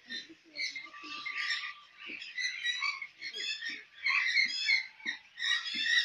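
A flock of budgerigars chattering: a dense, unbroken run of overlapping chirps and warbles.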